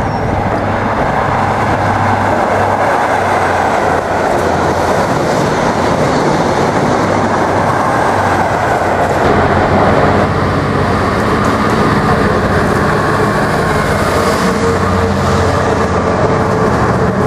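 Diesel trains passing at speed: first a Grand Central HST, its class 43 power car's engine running steadily as the coaches rush by, then a Freightliner class 66 diesel locomotive hauling a rake of coal hopper wagons. Near the end the wagon wheels clack rhythmically over the rail joints.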